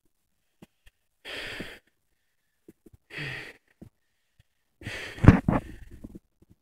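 A person breathing heavily into the microphone, three loud breaths a second or two apart, the last one longer and louder.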